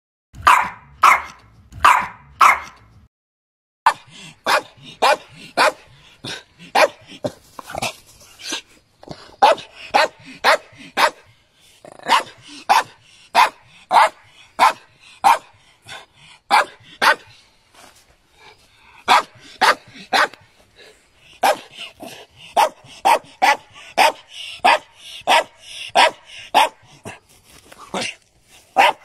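Jack Russell terrier barking repeatedly in short, sharp yaps, about two barks a second, with a short pause about three seconds in.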